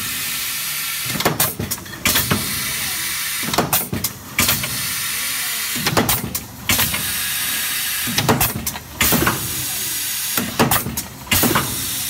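Automatic butane gas filling machine cycling: a steady hiss of about a second alternates with a cluster of clicks and clunks from its pneumatic heads and indexing table, repeating about every two and a half seconds.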